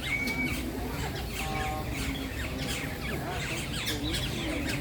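Several birds chirping and calling at once: a busy mix of short, quick high notes.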